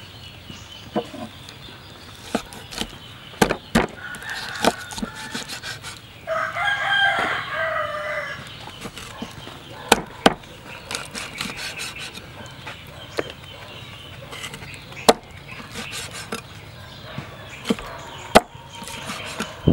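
A steel meat cleaver chops an eel into chunks on a wooden cutting board, giving sharp knocks at irregular intervals. A rooster crows in the background for about two seconds, about six seconds in.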